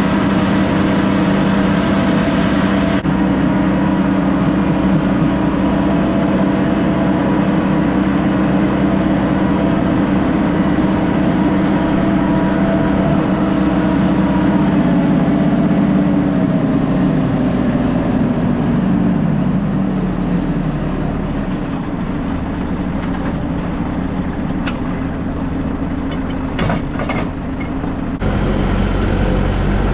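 Farm tractor running under load, driving a PTO-powered manure spreader, with a steady engine drone. About halfway through the pitch falls away as the engine and spreader slow down, leaving a lower, steadier hum.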